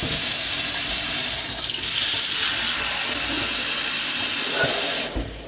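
Kitchen tap running steadily into a bowl in the sink, filling it with water, then shut off abruptly about five seconds in.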